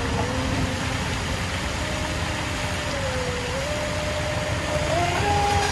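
The brushless electric motor of a radio-controlled boat whines faintly across the water, its pitch shifting with the throttle and stepping higher about five seconds in, over a steady low rumble of background noise.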